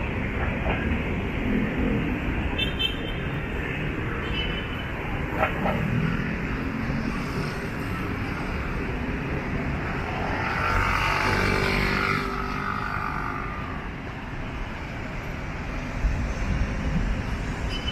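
Road traffic: cars running along a busy city street in a steady rumble, with one louder vehicle passing close by about ten to twelve seconds in.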